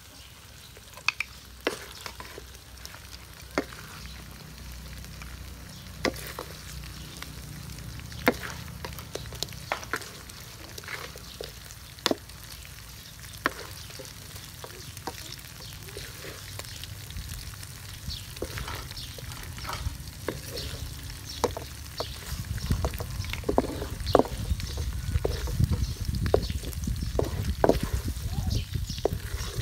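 Wooden spatula scraping and knocking against a steel wok as stir-fried chicken with ginger is turned and scooped out, with frying sizzle underneath; the knocks come irregularly. A low rumble builds in the last third.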